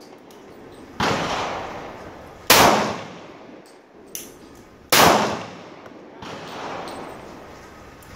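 Glock 22 .40 S&W pistol fired three times at an irregular pace, shots about one and a half to two and a half seconds apart, each crack followed by a ringing tail. A fainter crack sounds just after four seconds.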